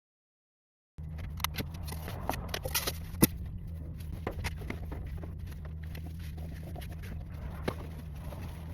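Packaging being handled as a portable cooler is unboxed: scattered clicks, taps and rustles over a steady low hum, starting about a second in.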